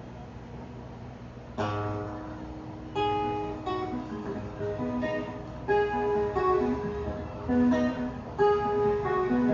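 Acoustic guitar playing an instrumental passage. After a short, faint lull, a chord is struck about one and a half seconds in, followed by a run of picked notes and chords.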